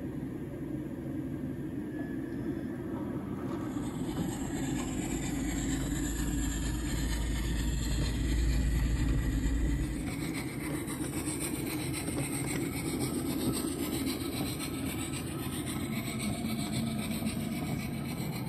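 Custom sound-effects soundtrack for the ghost show, played from a Pricom Dream Player through small full-range speakers. It is a steady noisy ambience with a deep rumble that swells in the middle and drops away about ten seconds in.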